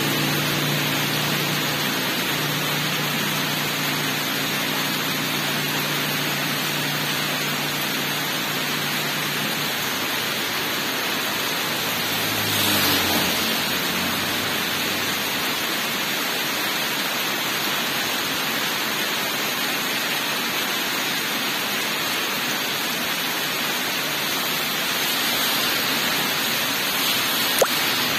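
Heavy rain falling steadily on a paved road, a dense even hiss. A vehicle's engine hum fades away over the first ten seconds, another vehicle swishes past on the wet road about halfway through, and a car comes along near the end, with one sharp click just before it.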